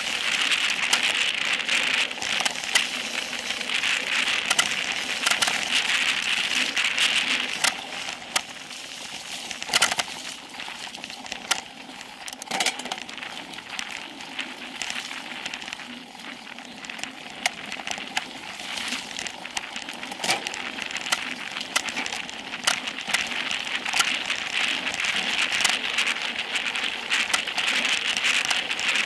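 Specialized Epic Pro mountain bike descending fast on dirt singletrack: a steady rushing of tyres on the trail and wind, with frequent irregular clicks and rattles from the bike over bumps. The rushing is quieter through the middle stretch and grows again near the end.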